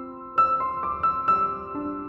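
Gentle background piano music: single notes struck one after another, a new note about every quarter second after a short pause near the start.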